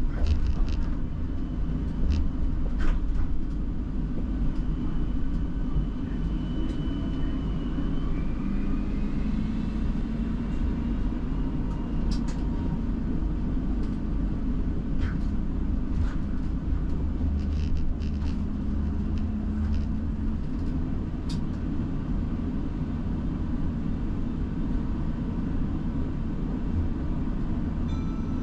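Siemens Combino low-floor tram running in service, heard from the driver's cab: a steady low rumble of the wheels on street rails with scattered sharp clicks. A faint whine rises in pitch about eight seconds in.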